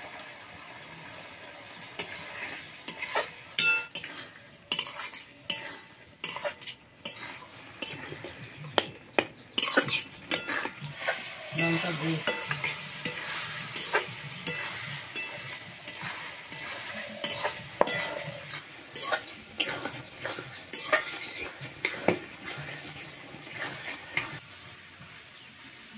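Chopped tomatoes and masala sizzling in a wok over a wood fire, with a spatula scraping and knocking against the wok as the curry is stirred. The scrapes and clacks come irregularly throughout over a steady frying hiss.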